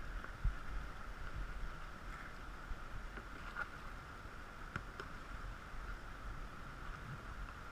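Steady rushing of river current over shallow riffles, with a low rumble underneath and two faint knocks, about half a second in and near five seconds.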